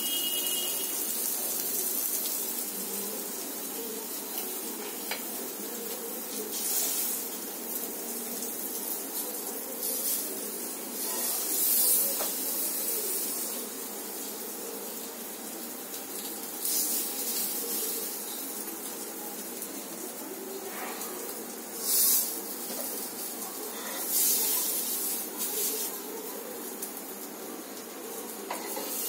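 Paneer tikka pieces on skewers sizzling on a hot flat tawa, the sizzle flaring up louder several times.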